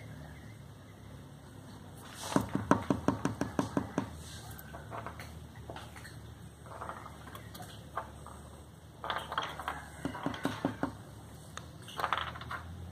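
Quick runs of light taps or clicks on a hard surface, about six a second, in three bursts: the first and loudest about two seconds in, the others near nine and twelve seconds in.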